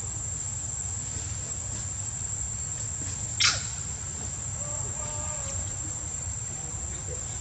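Steady high-pitched drone of insects. About three and a half seconds in, a single short, high call falls quickly in pitch.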